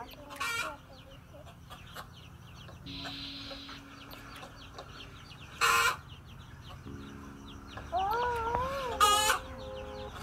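Hen clucking, with short loud squawks about half a second in, near the middle and near the end. These are a mother hen's alarm calls at a snake threatening her chicks.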